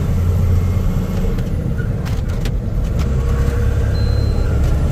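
14-wheeler truck driving on a broken road: a steady low engine and road rumble, with a few sharp rattles about two seconds in.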